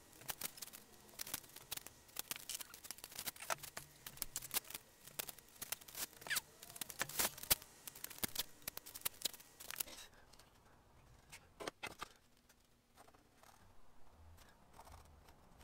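Blue painter's tape pulled off the roll in quick crackling strips and pressed onto the ends of quartz windowsill pieces. About ten seconds in the crackle stops, leaving only a few light taps and scrapes.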